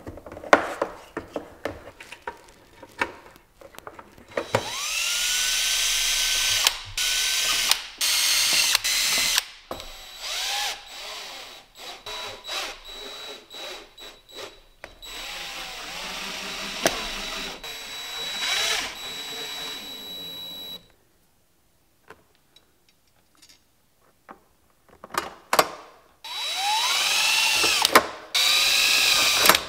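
Cordless drill run in several bursts, its motor whining up to speed each time as it drills the plastic wall of a hard case, with clicks and knocks of handling in between. There is a near-silent gap past the middle, then one more burst near the end.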